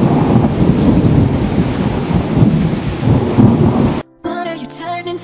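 Thunderstorm sound effect: thunder rumbling over heavy rain, cutting off abruptly about four seconds in. Music with sustained chords starts right after.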